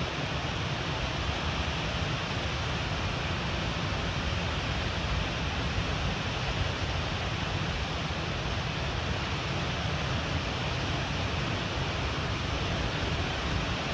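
Steady wash of ocean surf breaking below, with wind rumbling on the microphone.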